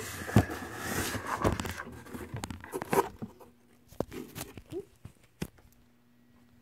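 Cardboard box being pulled open and handled: flaps scraping and rustling, with a string of sharp knocks and taps that thin out after about three seconds.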